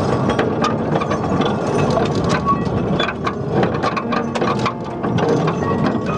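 Steel wheels of a small passenger car on 2 ft gauge narrow-gauge track clattering and clicking rapidly over the rail joints as the car rolls along, its body and fittings rattling, behind a battery-electric locomotive.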